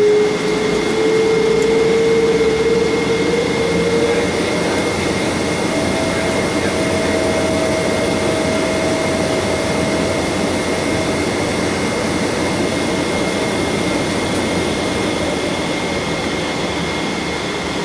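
Boeing 777-200ER's Rolls-Royce Trent 892 jet engines running: a steady rushing noise with a whine that rises in pitch over the first few seconds, then a second, higher whine from about six to eleven seconds in.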